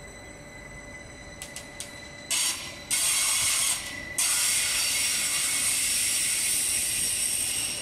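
Stadler FLIRT electric multiple unit passing at speed: a few light clicks, then from about two seconds in a loud, steady, high hissing rush as the train goes by.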